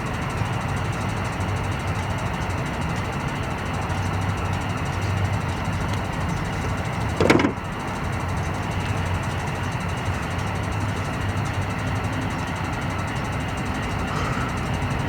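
Turbocharged Hyundai Genesis Coupe's engine and free-flow aftermarket exhaust droning at low, steady engine speed, with one short, loud burst about halfway through. The drone settles into a steadier hum near the end.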